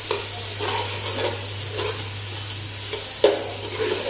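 Onion and tomato masala sizzling in oil in a metal pot while a metal spoon stirs it, scraping and knocking against the pot about once every half second to second. The sharpest knock comes about three seconds in.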